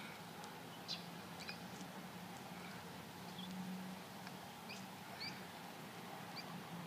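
Faint, scattered short high chirps of small birds, a dozen or so irregular calls, over a low steady hum.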